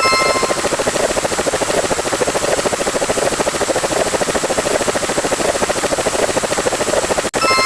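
A steady, rapidly fluttering whir, like a rotor, runs throughout; it cuts out for an instant near the end and a short pitched ding follows.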